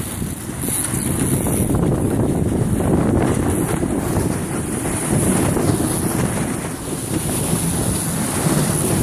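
Strong wind buffeting the microphone over the rush of water along the hull of a J/70 sailboat sailing fast under gennaker in about 20–26 knots of wind.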